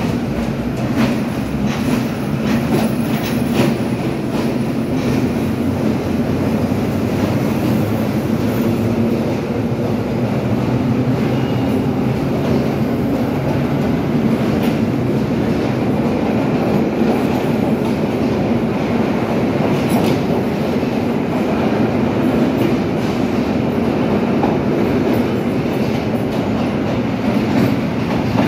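Vintage R1/R9-series New York City subway train running past along the platform: a steady, loud rumble of steel wheels on rail with clattering over the rail joints.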